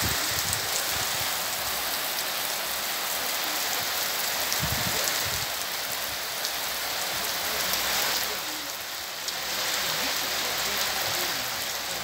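Heavy rain falling steadily on wet earth and plants: a dense, even hiss with scattered drop ticks. It eases a little for a moment about nine seconds in.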